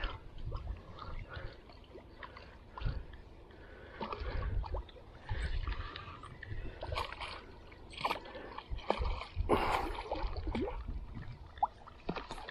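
Water splashing and sloshing in irregular bursts as a hooked carp is played in close to the bank, with scattered sharp clicks and dull knocks.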